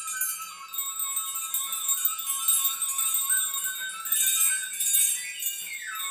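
Background music: a stepping melody over jingling bells.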